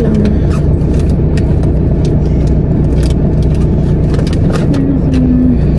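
Steady low hum of a car idling, heard inside the cabin, with scattered small clicks and rustles of things being handled.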